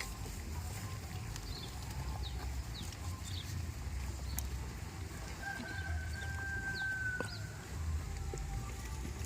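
A rooster crows once, a long held call that starts about five and a half seconds in and lasts about two seconds. Small birds chirp briefly throughout, over a steady low rumble.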